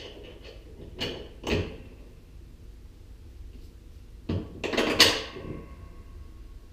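Metal clanks and knocks of a bolt and hand tools against the riding mower's steel frame and transmission bracket: two knocks about a second in, then a quicker cluster near the end, the loudest leaving a brief metallic ring.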